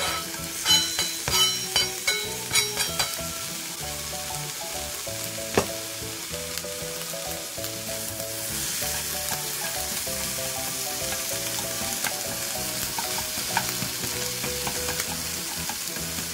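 Sliced onion sizzling in a lightly oiled nonstick frying pan over medium heat, pushed around with wooden chopsticks. A few sharp clatters come in the first three seconds as the slices drop in, and the sizzle grows louder from about eight seconds in.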